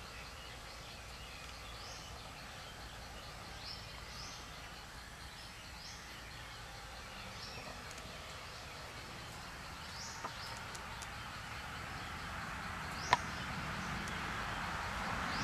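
Outdoor ambience with a bird giving short high chirps every second or two over a steady hiss. There is a single sharp click about thirteen seconds in, and the hiss grows louder near the end.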